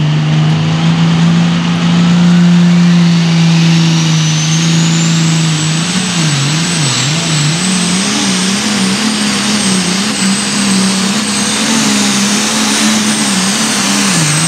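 A Light Limited Super Stock pulling tractor's turbocharged diesel engine runs at full power on a pull. A turbo whine climbs steeply over the first five seconds to a high, steady scream. From about six seconds in, the engine note wavers up and down under the load of the sled.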